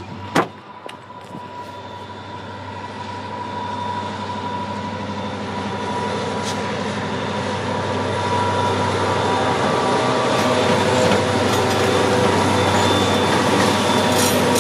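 Diesel locomotive WAMX 3532 approaching with a long freight train, its engine a steady low drone that grows steadily louder as it nears and rolls onto the bridge. A single sharp knock sounds about half a second in.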